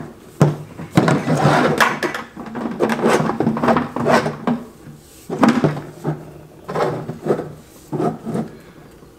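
Plastic clattering: PVC pipe legs and elbow fittings knocked, rubbed and pushed onto a plastic bucket, a run of irregular knocks and scrapes.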